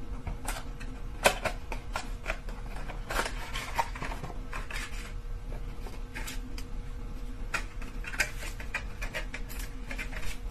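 Cardboard earbud packaging being handled and opened by hand: scattered scrapes, clicks and rustles as the box is worked open and the inner box pulled out.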